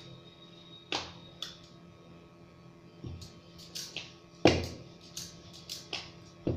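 Wooden rolling pin rolling and knocking on a rolling board as dough is rolled out flat for samosas: irregular knocks and clicks, the loudest about halfway through.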